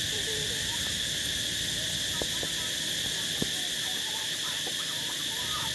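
Steady high-pitched drone of insects, with faint short chirping calls over it and a couple of sharp clicks about two and three and a half seconds in.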